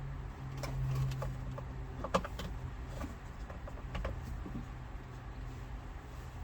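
Small clicks and light rattles from handling a car dome light switch and its test leads, with a sharper click about two seconds in, over a steady low hum.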